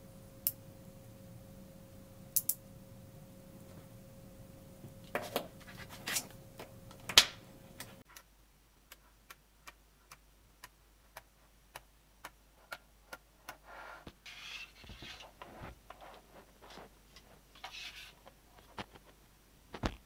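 Small magnetic balls clicking as they snap onto one another. First come a few loud separate clicks, then a steady run of clicks about twice a second, with some scratchy rattling of balls near the end.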